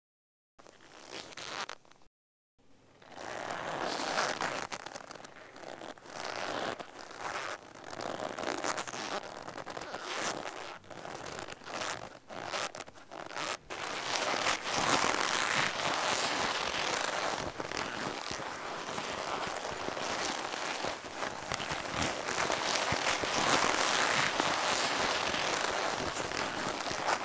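Leather jacket creaking and rustling as the wearer moves, in short irregular spells at first and almost without a break from about halfway through.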